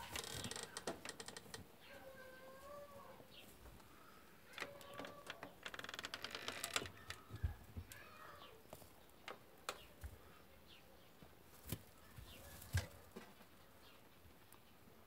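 Faint rustling and quick trains of clicks from straw bedding and the wooden hutch as rabbits scrabble about, with scattered single knocks. Faint bird calls are heard in the background.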